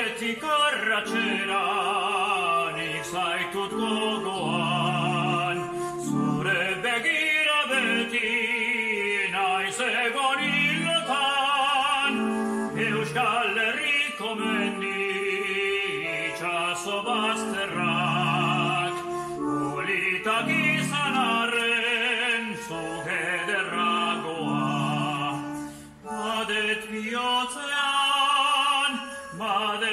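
A man singing in an operatic style, held notes with wide vibrato, in phrases with short breaths between them.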